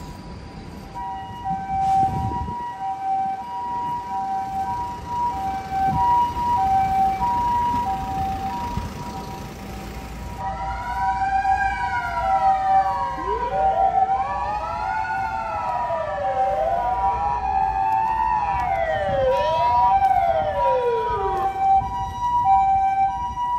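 Ambulance siren sounding a steady two-tone high-low pattern. For about ten seconds in the middle, a second siren wails up and down over it.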